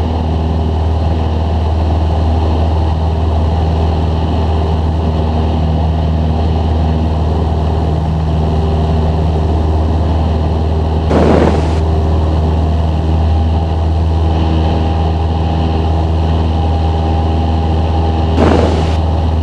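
Cessna 172's piston engine and propeller droning steadily under climb power, heard from inside the cabin. Twice, a little past halfway and again near the end, a short burst of noise cuts across the drone.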